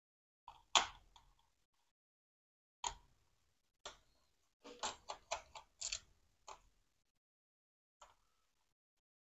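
Small sharp clicks and taps of screws and a screwdriver being handled against a laptop's plastic bottom case while its screws are taken out. The loudest tap comes near the start, then single clicks, a quick run of about six clicks in the middle, and a couple more.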